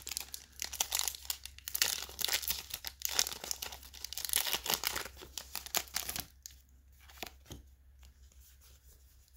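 Foil wrapper of a Pokémon trading card booster pack crinkling and tearing open along its crimped top seal, a dense crackling that lasts about six seconds. After that it drops to a much quieter stretch with only a few faint ticks.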